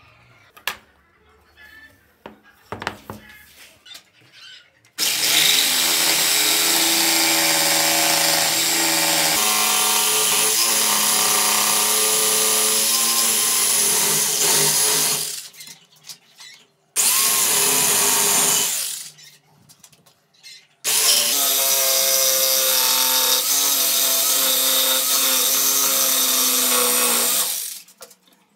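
Electric jigsaw cutting a wooden block clamped in a bench vise, running in three stretches: a long cut, a short burst, then another long cut, with brief pauses between them. Faint clicks and knocks come before the saw starts.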